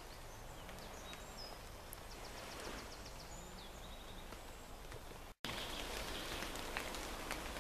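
Woodland ambience in light rain: a steady hiss, with a small bird singing short high trills in the first half. About five seconds in the sound drops out for an instant and returns slightly louder, with scattered faint ticks of raindrops.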